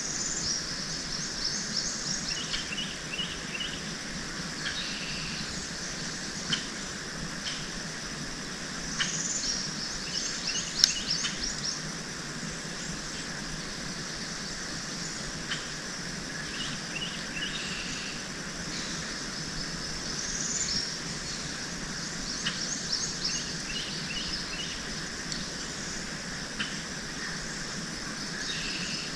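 Birds chirping in short repeated trills and note series over a steady outdoor background hiss, with a few faint clicks and one sharp tap about eleven seconds in.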